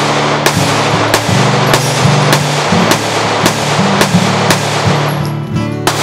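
Taylor's & Company compact 9mm 1911 semi-automatic pistol firing a steady string of about ten shots, a little under two a second, over background guitar music.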